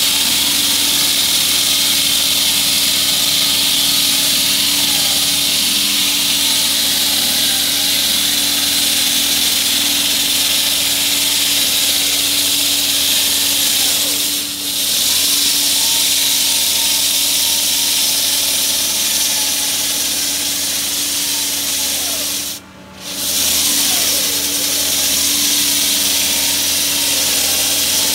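A water-fed diamond saw blade on a truck-mounted curb-cutting rig, sawing through a concrete curb: a steady high grinding hiss over a constant mechanical hum. The sound drops out briefly about two-thirds of the way through.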